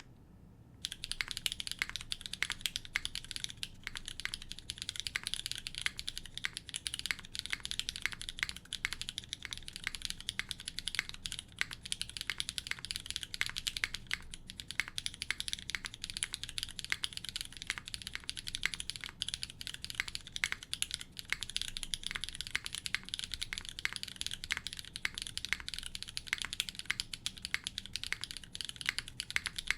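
Fast, continuous typing on a Neo65 mechanical keyboard with an aluminium plate and HMX Azalea switches. It is a dense, unbroken run of keystroke clicks that starts about a second in.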